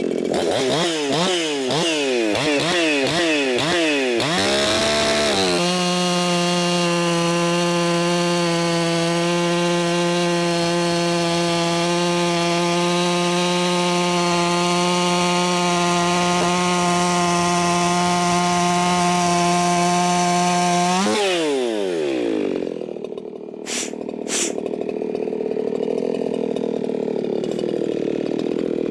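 Race-built Echo 4910 two-stroke chainsaw running at wide-open throttle during carburettor tuning. Its pitch wavers up and down for the first few seconds, then settles into a steady high scream. About 21 seconds in the throttle is released and the revs fall away to idle, with two sharp clicks a few seconds later.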